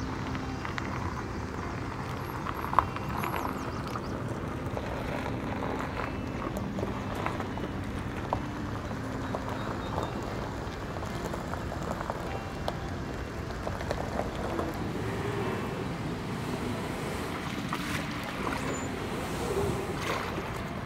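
Steady wind on the microphone with a vehicle engine running, then water at the river's edge near the end. A single sharp knock about three seconds in.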